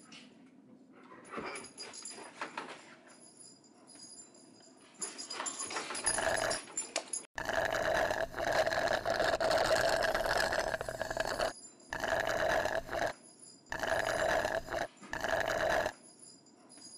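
Drink being sucked hard through a plastic straw from a styrofoam cup: a run of about five loud slurps with short breaks between them, the longest lasting about four seconds.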